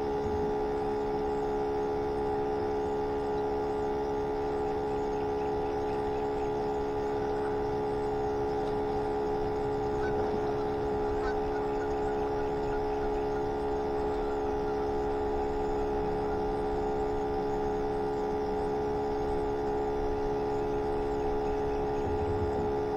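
Steady whine of a bait tank's pump sitting right under the microphone, an unchanging hum.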